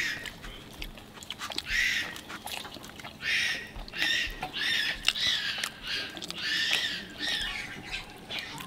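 A small animal calling repeatedly: about eight short, high chirps in a loose series.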